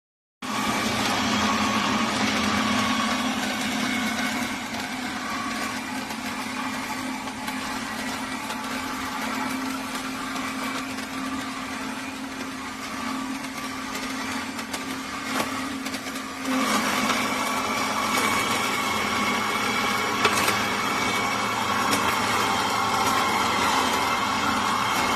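Electric slow masticating juicer running, a steady motor hum with a whine above it. It starts abruptly and turns louder and higher about sixteen seconds in.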